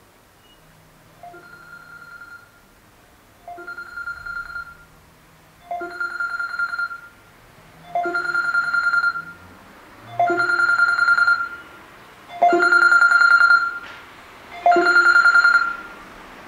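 Smartphone alarm ringing: seven ringing tones about two seconds apart, each louder than the last, stopping near the end.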